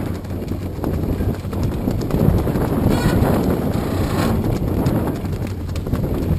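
Wind on the microphone and choppy water slapping against the hull, a steady rough rush with irregular knocks.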